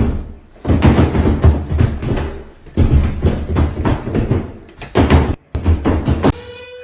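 Loud, deep thumps and bangs in uneven bursts, a few seconds long each with short gaps between. Near the end they stop abruptly and a steady pitched tone takes over.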